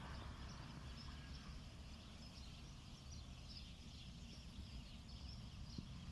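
Faint outdoor ambience: a steady low rumble like wind on the microphone, with faint scattered high chirps, likely birds.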